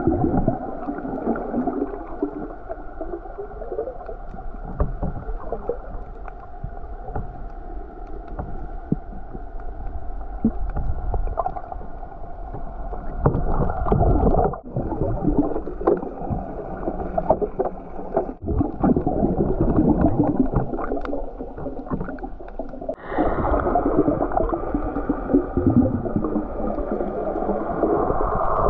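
Muffled underwater sound picked up by an action camera held below the surface: a steady low water rush with faint crackling. It drops out or changes abruptly a few times.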